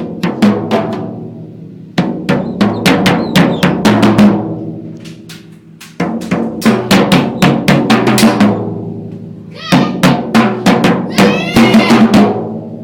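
Drumming: rapid snare and bass-drum hits played in phrases of about four seconds, each starting with a sharp hit and trailing off. A wavering higher tone joins in over the last phrase.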